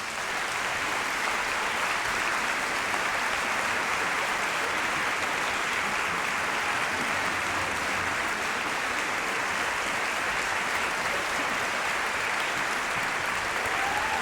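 Concert audience applauding: dense, even clapping that starts at once and holds steady.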